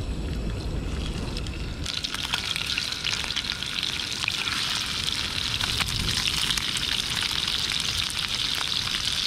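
Strips of raw fish sizzling and crackling in hot oil in a frying pan on a portable gas camp stove. The sizzle starts about two seconds in as the first pieces go into the oil, then holds steady while more pieces are added.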